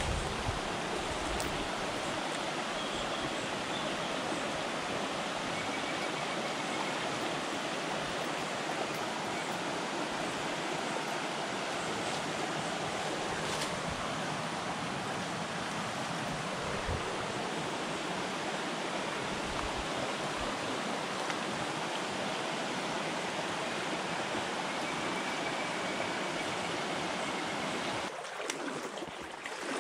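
Steady rushing of a small, shallow stream running over stones. The sound drops and turns uneven near the end.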